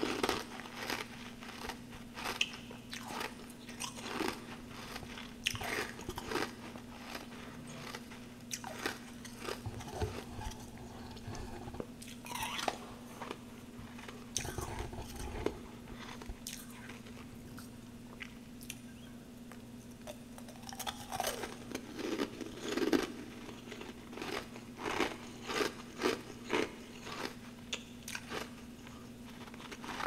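Close-up crunching and chewing of frozen humidifier frost chunks and packed snow, crisp crackling bites one after another. They thin out in the middle, then come quickly and evenly near the end, over a faint steady hum.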